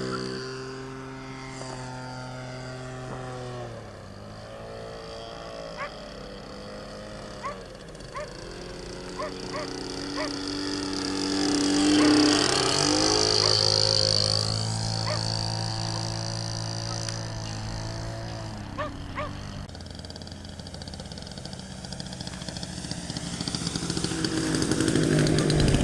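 Motor of a radio-controlled model Cessna 152 in flight, its pitch changing with the throttle. It drops in pitch a few seconds in, swells loudest with a high whine as the plane passes close about halfway through, and grows louder again near the end.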